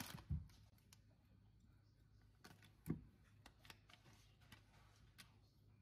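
Near silence with faint, scattered clicks and taps of a spoon and containers handled at a stainless steel pot, and one soft knock about three seconds in.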